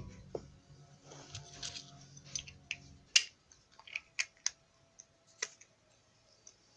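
Small plastic glitter container being handled and opened: a series of sharp, separate clicks and taps, mostly in the second half.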